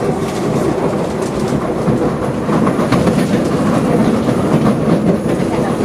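Inside an SMRT C751B metro train running at speed: a steady rumble of running noise with the wheels clattering on the track, the clicks coming thickest in the middle.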